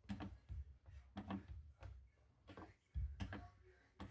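A string of soft, irregular knocks and thuds, roughly two a second.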